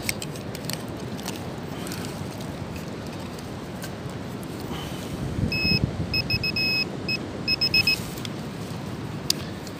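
Metal detector beeping on a buried metal target: short beeps at one steady pitch, starting about five and a half seconds in, some in quick runs, over a steady background hiss.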